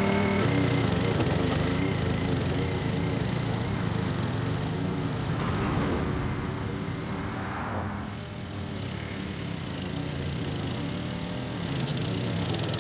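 Powersmart 21-inch push mower's 144cc single-cylinder engine running steadily under load as it cuts tall grass. It grows fainter as the mower moves away and louder again near the end.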